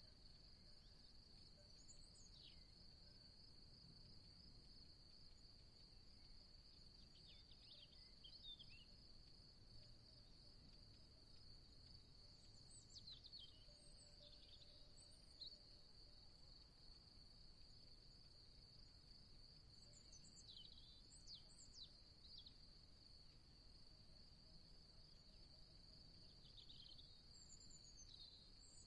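A faint, steady, high-pitched chorus of crickets or similar insects, with short chirping bird calls breaking in every few seconds.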